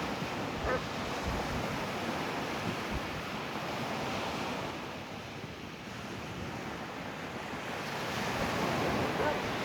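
Surf breaking steadily on a beach, with wind buffeting the microphone; the noise swells a little near the end.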